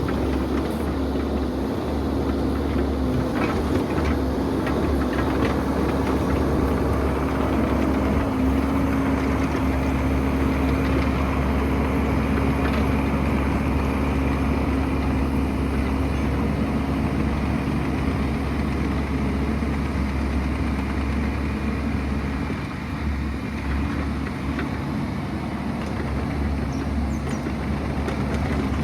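Excavator's diesel engine running steadily, with a few light knocks a few seconds in.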